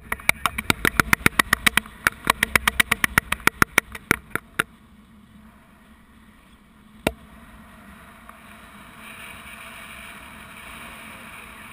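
A fast run of sharp clicks, about seven a second, that thins out and stops after about four and a half seconds, with one more click a couple of seconds later. Then a steady rush of wind over the GoPro microphone in flight.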